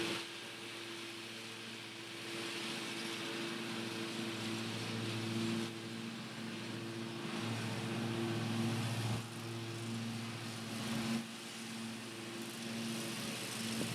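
John Deere D140 lawn tractor engine running steadily while mowing with the rear bagger, its hum swelling and easing a few times.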